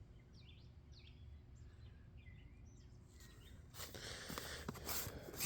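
Faint bird chirps in the background, then, from about four seconds in, rustling and clicking as the firework cakes and their packaging are handled.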